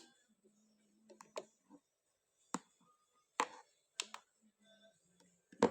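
About half a dozen sharp clicks and taps at irregular intervals, the loudest near the end, over a faint low hum.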